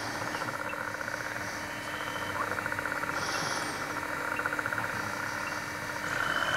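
Night chorus of frogs and insects: a dense, fast trilling with a steady low hum beneath it, and a brief higher call about three seconds in.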